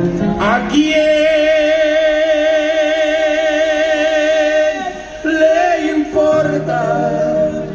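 A singer holds one long note with steady vibrato for about four seconds, then sings a short phrase and holds another note, with music behind.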